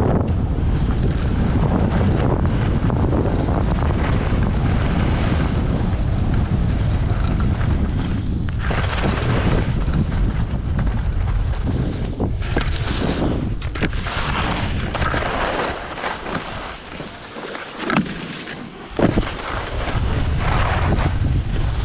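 Wind rushing over the microphone of a skier's camera while skiing downhill, mixed with the hiss and scrape of skis on packed snow. About two-thirds through the rush dies down, broken by two sharp scrapes, then builds again.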